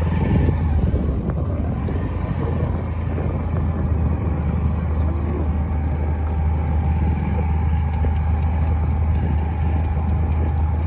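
A motor vehicle's engine running steadily at low speed, with a constant low hum and road and wind noise.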